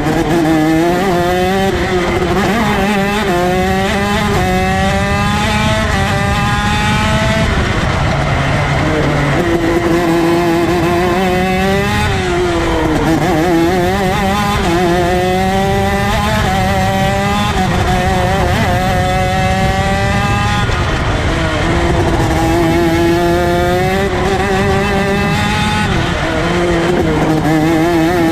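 ROK Shifter 125cc two-stroke kart engine at racing speed, its pitch climbing in quick steps through the upshifts, then falling away under braking and downshifts before climbing again, over and over.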